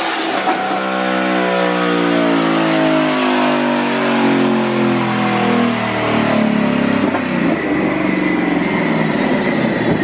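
Twin-turbocharged Coyote 5.0 V8 of a 2019 Ford Mustang GT running hard on a chassis dyno, with a thin high whine sliding slowly down in pitch above the engine note.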